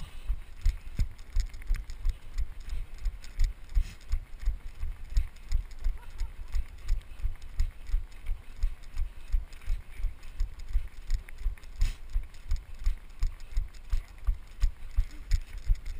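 A runner's footsteps thudding steadily on a snowy trail, about three a second, each stride jolting the GoPro camera the runner is wearing.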